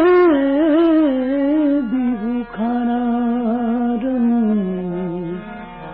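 Devotional bhajan singing by a male voice: a long, ornamented melodic line with steady held accompaniment beneath it. The line sinks in pitch near the end.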